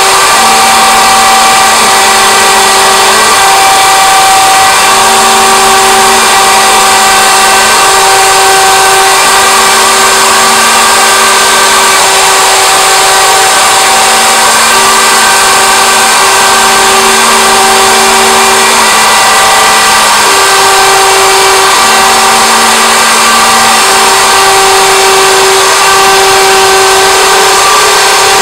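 Homemade CNC router cutting a groove pattern into a wooden board: the spindle motor runs loud and steady with a high-pitched whine. Lower stepper-motor tones come and go every second or two as the axes start and stop along each segment of the pattern.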